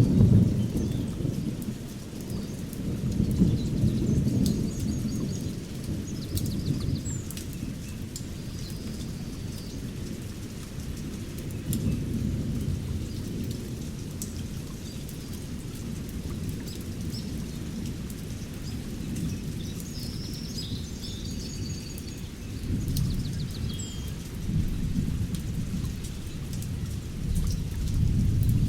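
Thunderstorm recording: steady rain with low rolling thunder that swells several times, and a few short bird chirps in the background.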